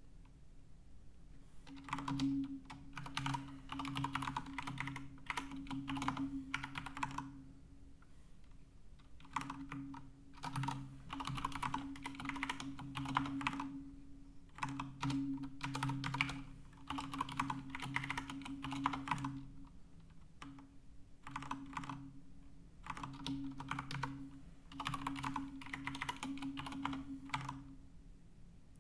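Typing on a computer keyboard in about six runs of rapid keystrokes, each a few seconds long, with short pauses between them.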